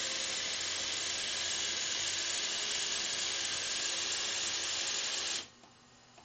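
Lego Technic CNC machine running with a steady whirring hiss, which cuts off suddenly about five and a half seconds in.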